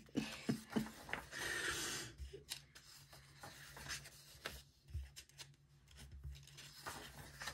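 Paper rustling as a paperback colouring book's pages are turned and smoothed by hand. There is one longer swish of a page about a second in, then soft rustles and taps.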